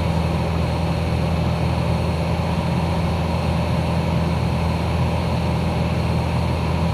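Light aircraft's piston engine and propeller droning steadily in flight, an even low hum with no change in power.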